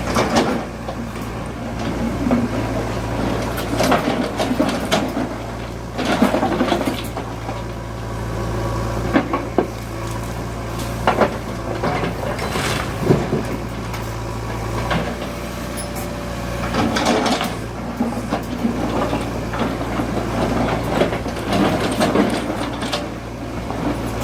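JCB 3DX backhoe loader's diesel engine running steadily under load, with sharp knocks and clatter every couple of seconds from the bucket and the material being loaded into a dump truck.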